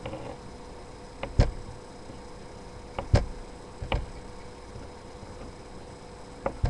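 A kitchen knife knocking against a cutting board while cutting cheese into blocks: about six sharp, irregular knocks a second or so apart.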